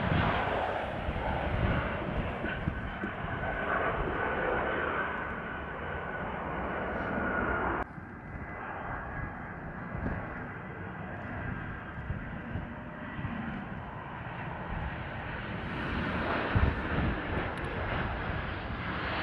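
Landing airliner jet engines heard from beside the runway: a steady rumble with a whine, cutting off suddenly about eight seconds in. A second arriving airliner follows with a quieter rumble and a fainter whine. The first is a Brussels Airlines Airbus A320 and the second a Brussels Airlines Airbus A319.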